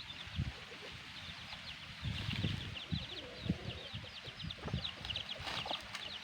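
Chicks peeping in quick clusters of short high chirps, with scattered low thuds among them.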